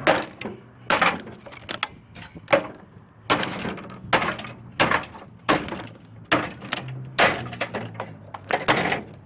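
Repeated hard blows striking metal, about a dozen evenly spaced strikes, knocking the small motor loose from an air-conditioner unit being broken down for scrap.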